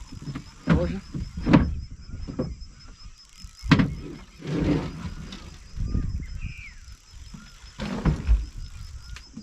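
Several sharp knocks and thumps of gear and people moving about in a small fishing boat, with low rumbling under them and a short high chirp about two-thirds of the way through.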